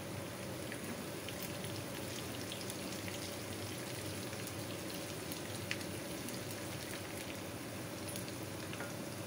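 Sliced onions frying in hot mustard oil in a small kadhai: a steady sizzle with scattered crackles as they brown for the tadka.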